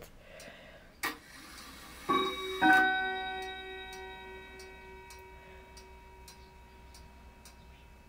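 A click, then a chime struck twice about half a second apart, the second strike bright with several ringing tones that fade slowly over about five seconds, over faint steady ticking.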